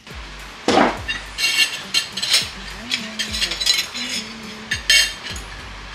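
Kitchenware clinking: an irregular string of sharp clicks and clinks, like utensils against dishes or a pan, over background music with a steady low beat.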